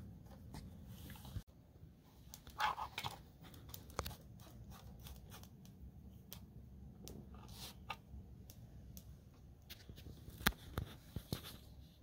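Quiet handling sounds of painting a small wooden birdhouse with a brush: faint scraping and paper rustling, with scattered small clicks and taps. There is a brief scratchy patch about three seconds in, and a few sharper clicks near the end.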